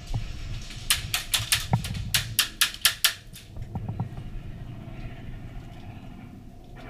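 Airsoft gunfire: a rapid string of about ten sharp cracks over a couple of seconds, starting about a second in.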